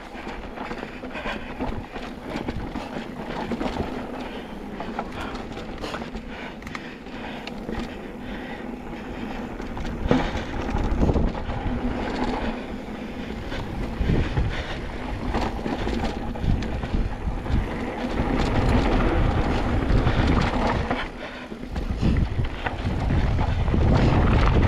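Wind buffeting the microphone over the steady hum and rumble of a moving vehicle, growing louder about halfway through and again near the end.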